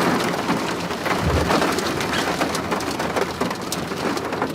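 Rain falling steadily, a dense hiss of rain with many separate drop hits ticking through it, and a brief low thump about a second in.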